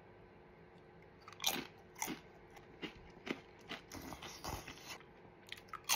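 Close-up eating sounds: a seeded Crunchmaster cracker being bitten and chewed, as a string of short, irregular crunches starting about a second and a half in.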